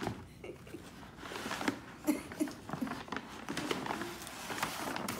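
A brown paper shopping bag rustling and crinkling as hands rummage inside it and pull out what it holds.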